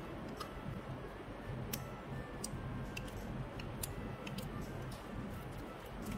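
Clear slime in a plastic tub being pressed and poked with fingers, giving irregular small sharp clicks and pops a few times a second over a steady low hum.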